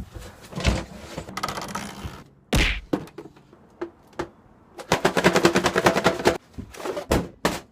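A cardboard delivery package being handled and opened: scattered thumps and knocks, then, about five seconds in, a burst of rapid crackling at about ten clicks a second.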